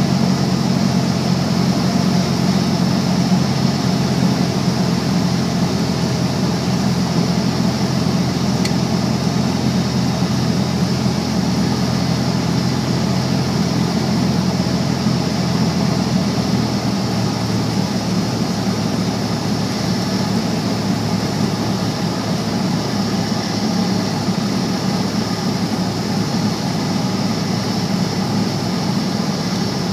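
Piston engine and propeller of a single-engine light aircraft droning steadily, heard from inside the cockpit on approach to landing. The engine note shifts and gets slightly quieter a little past halfway.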